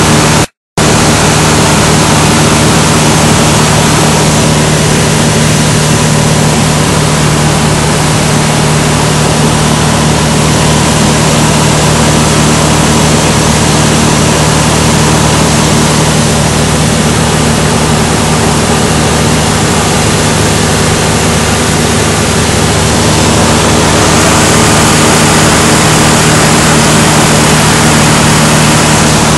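Light aircraft's propeller engine running steadily, heard from inside the cockpit as a constant drone with loud rushing air noise. The sound cuts out for a split second just under a second in.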